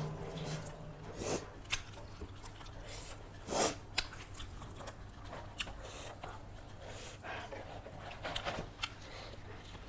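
Close-up eating sounds: scattered short clicks and crunches of chewing a mouthful of chicken biryani and salad, the loudest about a second and a half and three and a half seconds in, over a steady low hum.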